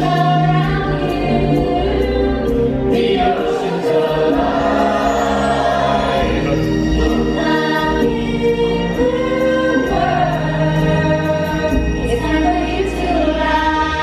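A stage musical number: a group of voices singing a show tune over an instrumental backing with a light, steady beat, heard from the audience in a large theatre.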